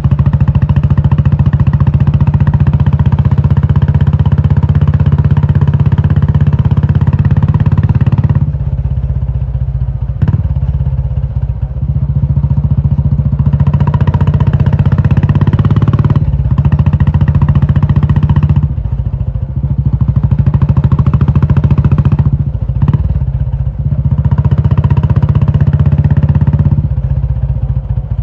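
Royal Enfield Classic 350's air-cooled single-cylinder engine running through a loud aftermarket Indore exhaust: a steady low exhaust beat. It goes loud on throttle for long stretches and drops back to a quieter note about four times, first about a third of the way in.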